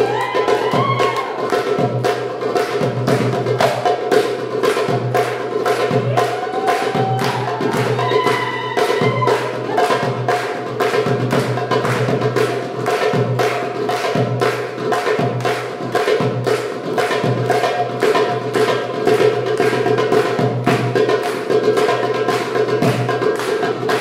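Darbuka (Egyptian tabla) played live in a fast, steady rhythm of sharp strokes, over held melodic notes with a few brief sliding notes about a second in and again around eight seconds in.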